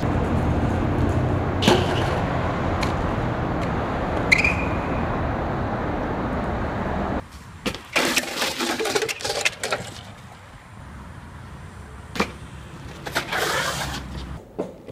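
BMX bike tyres rolling on concrete with a loud, steady rolling noise and a few sharp clicks. After an abrupt change about halfway through, the sound is quieter, with scattered knocks and clatters of a BMX bike dropping off a dirt bank and landing.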